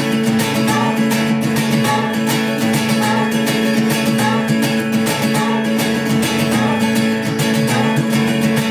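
Acoustic guitar strummed in a steady, even rhythm over held chords.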